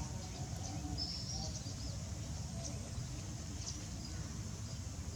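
A few short, high bird chirps over a steady low outdoor rumble, the clearest about a second in.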